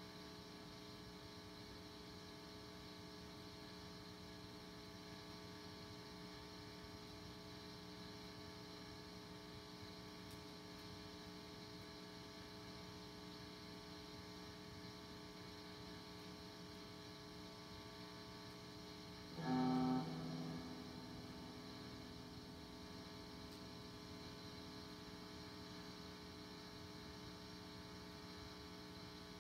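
Steady, faint mains hum and buzz from an electric guitar rig with the strings idle. About two-thirds of the way through, a single electric guitar note or chord is struck, rings for about a second and fades back into the hum.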